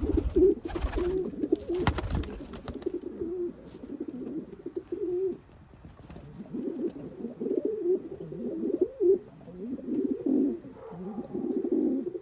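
Homing pigeons cooing: low, warbling coos repeated almost without a break, easing off for a moment near the middle. A short rustle sounds in the first couple of seconds.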